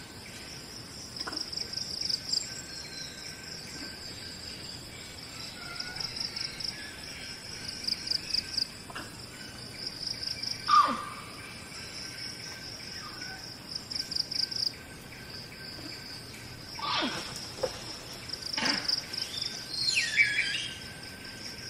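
Outdoor nature ambience: a steady, pulsing insect trill of the cricket kind. A few sharp animal calls sweep quickly down in pitch, about halfway through and twice more later, and a short warbling call comes near the end.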